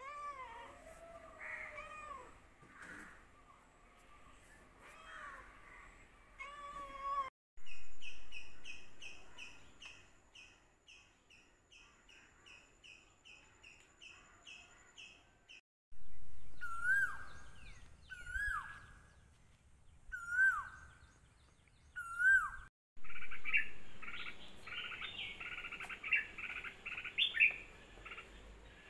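A domestic cat meowing several times, followed by a run of bird sounds: a regular series of high chirps about two a second, then four loud falling calls, then dense overlapping chirping.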